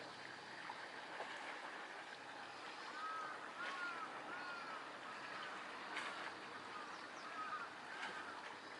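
Harbour water lapping steadily against the quay and boats. From about three seconds in to near the end, a bird repeats short, arched calls, about eight in a row, with a couple of light knocks among them.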